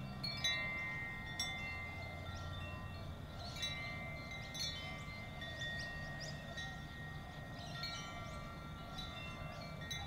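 Wind chimes struck at irregular moments, several notes at a time, each ringing on and slowly fading, over a faint low hum.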